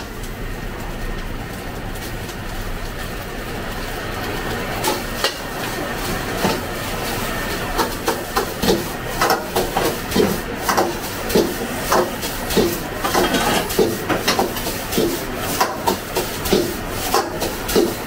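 Metal ladle clanking against a steel wok while fried rice is stir-fried over a gas burner, with a steady roar underneath. The clanks come a few at a time at first, then settle into a steady rhythm of about two a second from about eight seconds in.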